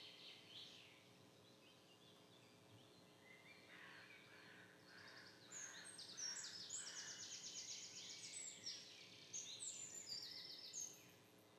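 Faint birdsong from several birds chirping, with rapid trills joining from about halfway through and stopping shortly before the end.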